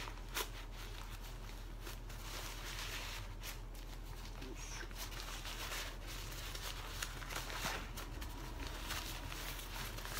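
Fabric of a packable rain cover rustling and crinkling as it is handled and pulled out of its stuff sack, with scattered small ticks and crackles.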